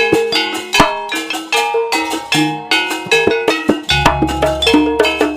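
Gamelan ensemble playing an instrumental passage: struck bronze gong-chimes and metallophones ringing in a quick, dense rhythm, with drum strokes among them.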